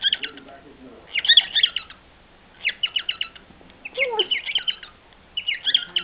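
Cockatiel singing: four bursts of rapid, high chirps, each lasting under a second, with short pauses between them.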